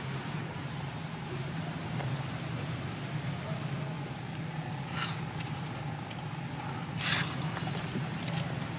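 Steady outdoor background noise: a low hum under a hiss, with two brief higher-pitched sounds about five and seven seconds in.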